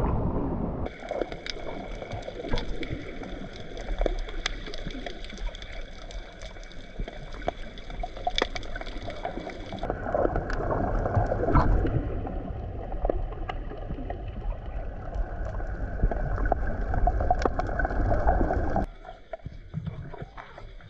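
Underwater sound picked up by a submerged GoPro: a steady watery rumble with scattered sharp clicks and crackles. The sound changes abruptly about a second in, about ten seconds in and near the end as the footage cuts between clips.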